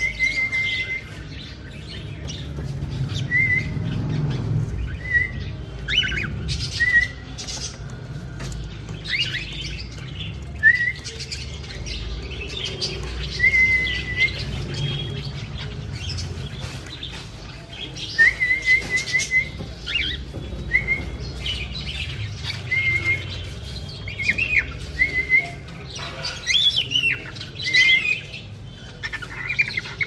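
Cockatiels chirping in short, repeated calls, coming more often near the end, with sharp clicks in between.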